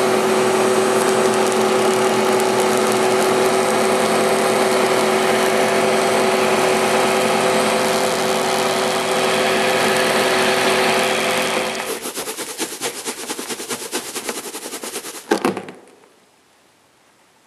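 Van de Graaff generator's motor and belt running with a steady whir. About three-quarters of the way in it gives way to a fast ticking rattle, then one loud knock, and the sound dies away.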